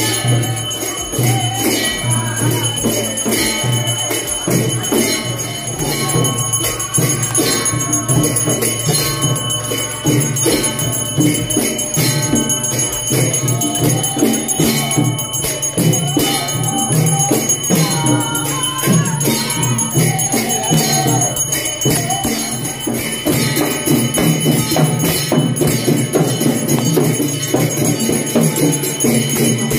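Brass hand bell rung continuously in aarti worship, over steady devotional music.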